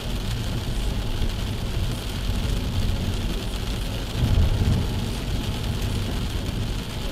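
Car driving at about 60 km/h on a wet road in the rain, heard from inside the cabin: a steady low road-and-engine rumble with the hiss of tyres on water and rain. About four seconds in there is a brief louder low rumble.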